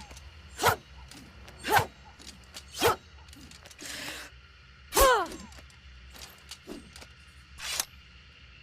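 A series of katana sword sound effects, about one a second: short sharp swishes and strikes. The loudest, about five seconds in, is a ringing blade 'shing' whose pitch falls.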